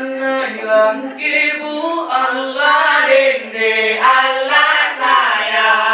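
A group of female voices singing a traditional South Sulawesi dance song together, with held notes stepping up and down in pitch and no drums.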